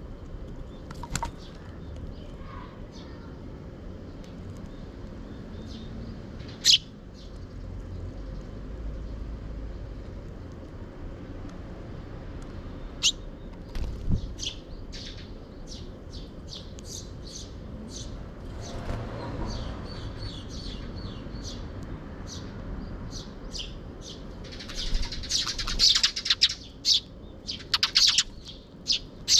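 Eurasian tree sparrows chirping: short high chirps scattered at first, then many overlapping chirps in the last few seconds as several birds gather at the seed feeder.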